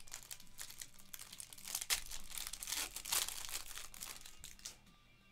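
Clear plastic trading-card pack wrapper crinkling and rustling in the hands as a pack of football cards is opened and the cards are slid out. The crackling comes in irregular spurts and dies down near the end.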